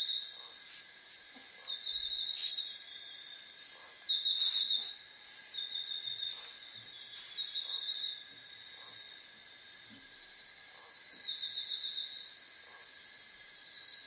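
Steady outdoor insect chorus: several unbroken high buzzing tones, with short repeated trills every second or two. Scattered brief rustles come in the first half, fewer after that.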